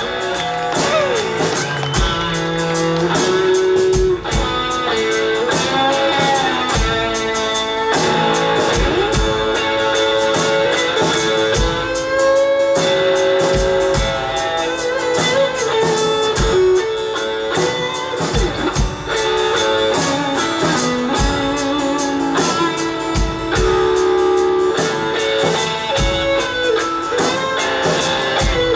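Live band with an electric guitar solo: sustained lead guitar notes that bend up and down in pitch, over the band's drums and backing.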